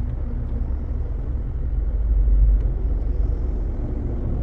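Vehicle engine idling: a steady low rumble that swells slightly about two seconds in.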